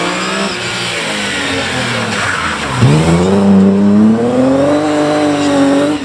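BMW E36 3 Series rally car engine: the revs fall as the car slows through a turn, then about three seconds in the throttle opens and the engine note jumps louder and climbs, holding at high revs as the car accelerates away.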